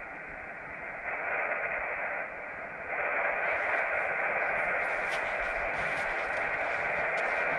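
Portable HF radio receiver's speaker hissing with band noise on the 20-metre band while no station is being received. The hiss gets louder about a second in and again about three seconds in.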